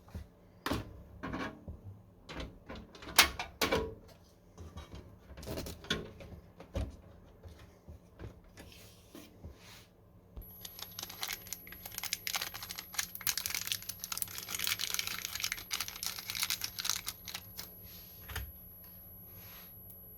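Hardware being handled during a PC build: scattered plastic and metal clicks and knocks. About halfway through, a dense crackling rustle begins, like plastic or packaging being crinkled, and fades out near the end.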